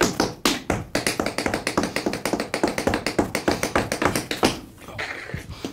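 Tap shoes striking a wooden floor in a quick, even run of taps, several a second, from a tap step built on double shuffles; the taps thin out about four and a half seconds in, with a few single strikes near the end.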